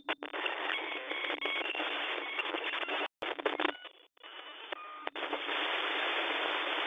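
Radio-static sound effect squeezed into a narrow, telephone-like band, cutting out for a moment a little past halfway, with a few short electronic tones in the quieter stretch that follows.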